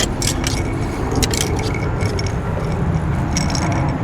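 A few short metallic clinks and rattles of fishing gear being handled, over a steady low rumble.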